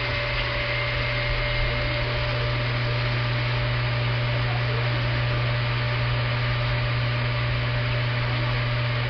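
Pentax electric water pump running steadily, a constant motor hum with an even rushing whir.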